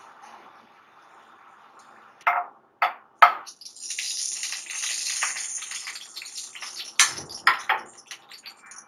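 A metal spoon knocks three times against an iron kadai, then hot ghee with cloves and green cardamom pods sizzles loudly, breaking into scattered crackles near the end.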